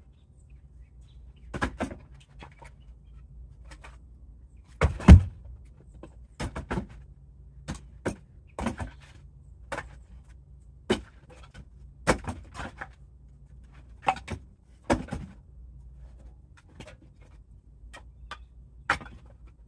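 Pieces of firewood knocking against each other as they are picked from a pile and loaded into a wagon: a string of sharp wooden knocks, roughly one every second, the loudest about five seconds in.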